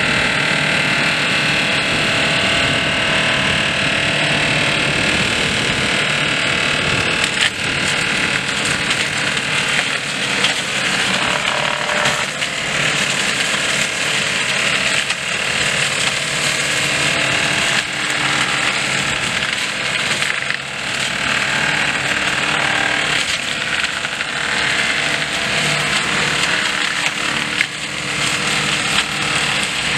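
Kraffter tractor-mounted forestry mulcher shredding branches and brush, its rotor running under load behind the tractor's engine. A loud, steady mechanical clatter with frequent sharp cracks of wood being broken up.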